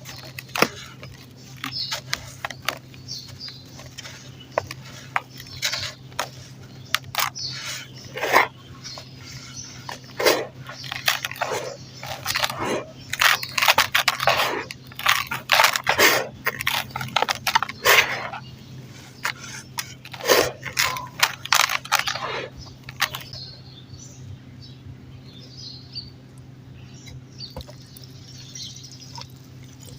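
Clumps of dirt being crumbled and crushed, a string of sharp crunches and crackles that grows thickest through the middle and thins out toward the end, over a low steady hum.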